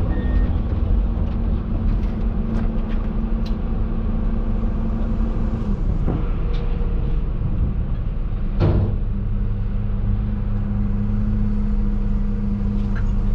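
Heavy diesel engines of a digger and a concrete truck running under load, with two short knocks about six and nine seconds in; after the second knock the engine note steadies and becomes stronger.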